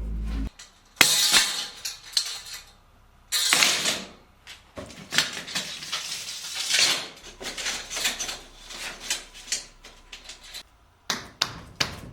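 Metal parts clinking and clattering as they are handled, with several bursts of rustling in between.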